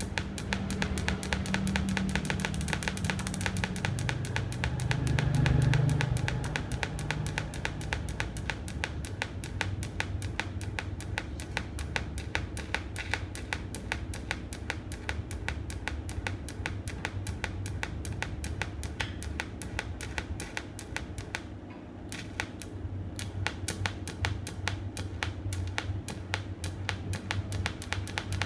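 TIG welding arc driven by a pulse box, ticking in a fast, even rhythm over a low hum.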